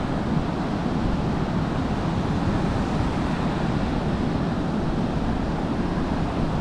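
Surf breaking and washing onto the beach, with wind buffeting the microphone in a steady low rumble.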